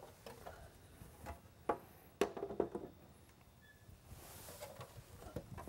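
A few scattered light knocks and clicks as a clear lightbar dome top is handled and set down onto the lightbar base, the clearest about two seconds in.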